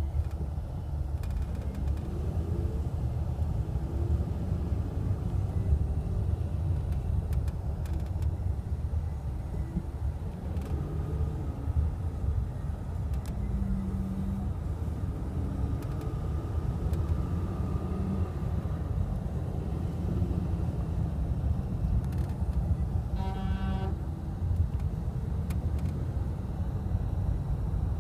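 Steady road and engine rumble inside the cabin of a 2011 Honda Pilot on the move, with a few faint clicks and, near the end, a brief buzzy tone.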